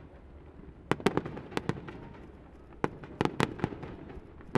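Fireworks display: shells bursting in two quick volleys of sharp bangs and cracks, about a second in and again near three seconds, with an echoing rumble between the volleys.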